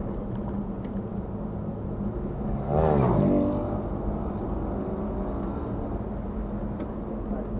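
Rally car's engine running with road rumble, heard from inside the cabin. About three seconds in there is a brief louder surge whose pitch sweeps.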